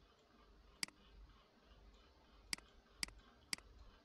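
Four sharp computer mouse clicks, one about a second in and three about half a second apart near the end, over near silence.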